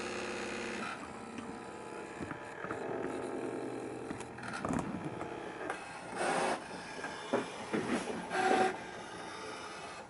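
Brother ScanNCut SDX1000 cutting machine at work on a cut: its motors whine in steady tones that shift in pitch as the blade carriage and mat move, with a few short louder whirring passes in the second half.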